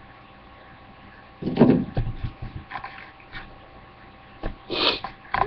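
A person snorting sharply about a second and a half in and sniffing near the end, close to the microphone, with a few light knocks and clicks between.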